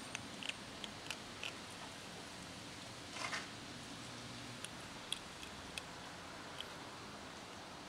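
Kittens crunching dry cat kibble: scattered small sharp crunches, and a short burst of rustling noise a little over three seconds in, over a faint low background hum.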